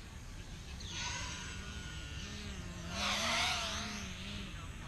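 Overcharged LiPo battery cells venting gas inside a steel ammo can. A hiss starts about a second in and swells to a loud rushing burst about three seconds in, as smoke jets out from under the lid. This is the sign of the cells rupturing in thermal runaway.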